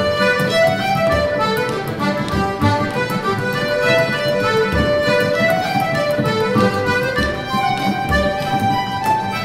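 Irish traditional reel played by an ensemble: accordion and fiddle carry a fast melody while a bodhrán, beaten with a tipper, and bones keep the rhythm.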